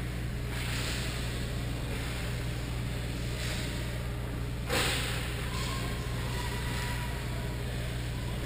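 Ice rink ambience: a steady low hum with a few brief scrapes of skates on the ice, and one louder sharp scrape or knock about halfway through.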